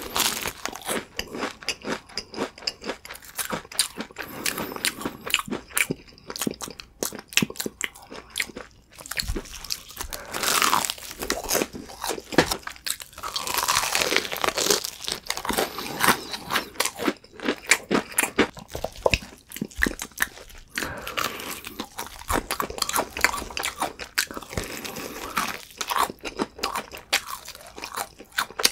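Close-miked eating of crispy fried chicken: bites into the crunchy coating, then a long run of chewing full of small, irregular crackles.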